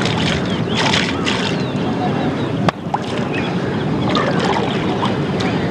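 Steady rumbling hiss of wind and river water at the water's edge, with one sharp click about halfway through.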